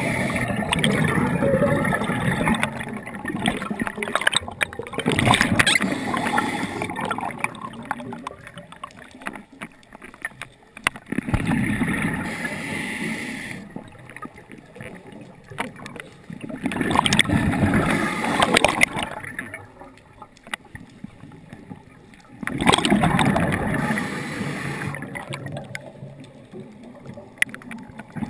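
Muffled underwater water noise around a swimming spearfisher, rising and falling in several surges with quieter stretches between.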